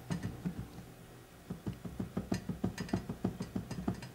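Small mechanical clicks from handling an MBS-10 stereo microscope's metal parts. A few scattered clicks come first, then from about a second and a half in an even run of about six clicks a second, like a ratchet.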